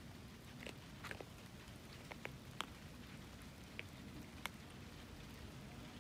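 Kittens eating food from a bowl in light rain: faint, irregular sharp clicks, about seven scattered through, over a low steady background.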